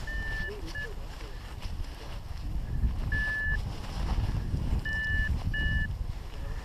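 Paragliding variometer giving five short, steady electronic beeps of one pitch in irregular groups, over a low rumble of wind on the microphone.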